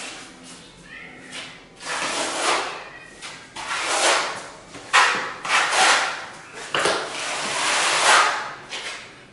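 A trowel scraping tile mortar: a run of rasping strokes as mortar is scooped from a bucket and spread on the floor, the longest stroke near the end.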